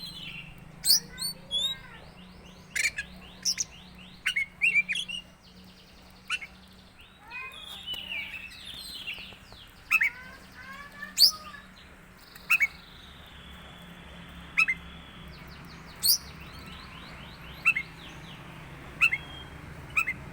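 Oriental magpie-robin (kacer) singing a varied song of sharp chirps, falling whistles and fast buzzy trills, which its owner calls strange. A low steady hum runs underneath.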